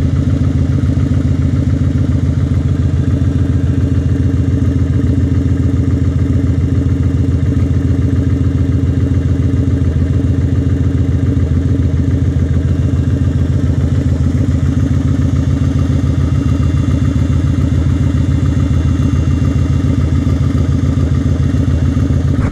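2008 Kawasaki Vulcan 900 Classic's V-twin idling steadily on a DanMoto Highwayman 2-into-1 full exhaust, the engine warmed up.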